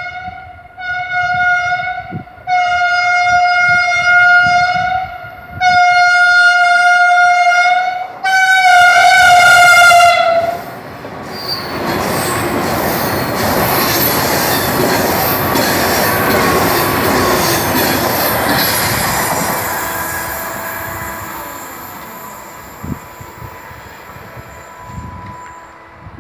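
An ETR575 (Italo AGV) high-speed electric train sounds its horn in five long blasts, the last one dropping in pitch as it comes level. It then rushes through the station at speed, and the noise fades slowly away.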